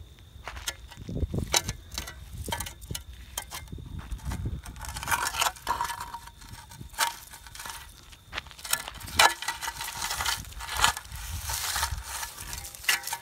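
Steel shovel blade scraping and grating over a gravel road as it is pushed under a carcass and lifted, with many sharp clicks of small stones. There are longer scrapes about five seconds in and again from about nine seconds to near the end.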